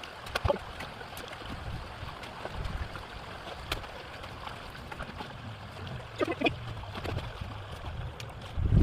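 Water running and gurgling through a beaver dam as it is being opened up, with scattered sharp clicks and knocks and a loud low thump near the end.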